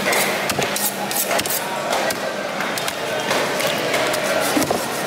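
A large fish knife striking and cutting on a chopping block as a trevally is cut up: sharp, irregular knocks, over background voices.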